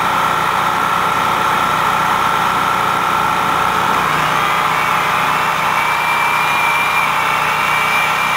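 Steady mechanical running noise with a constant hum and whine. A second, higher whine joins about five and a half seconds in.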